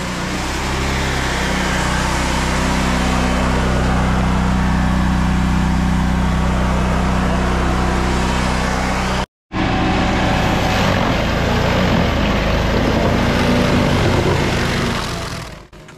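Toro tracked stump grinder working: the steady hum of its engine under the noise of the cutter wheel grinding a conifer stump into chips. The sound cuts out for a moment about nine seconds in, then carries on.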